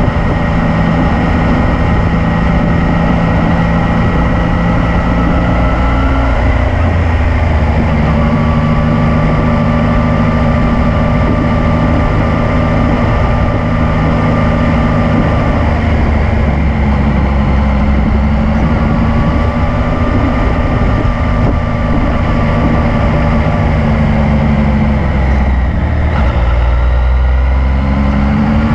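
Yamaha MT-09's three-cylinder engine running under way at fairly steady revs, heard from on the bike over steady road and wind noise. Its pitch steps down a few times and climbs near the end as the bike accelerates.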